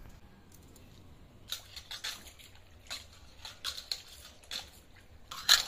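Hands working through cut onion and green chillies in a steel bowl: a run of short, irregular rustles and scrapes, the loudest near the end.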